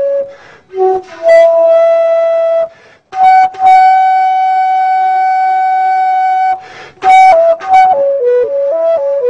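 Solo wooden end-blown flute played slowly: long held notes with a breath between each phrase, the longest held about three and a half seconds. Near the end comes a quicker run of short notes stepping down in pitch.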